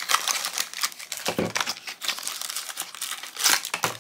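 Black foil blind-bag pouch crinkling as it is pulled from its cardboard pin box and opened, with dense sharp crackles and a louder burst about three and a half seconds in.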